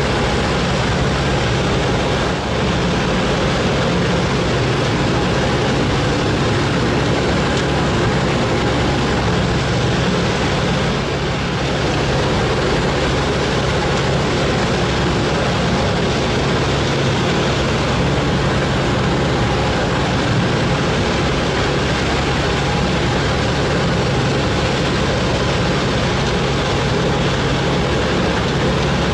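Whale-watching boat's engine running steadily, a constant low drone with a steady hiss over it.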